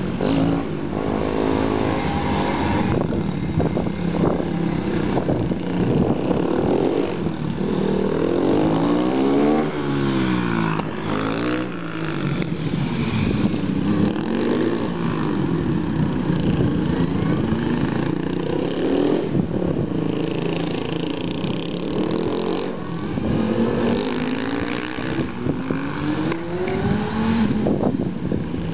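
Several motorcycles ridden at low speed through tight cone turns, their engines repeatedly revving up and dropping back, with the rising and falling pitches of different bikes overlapping.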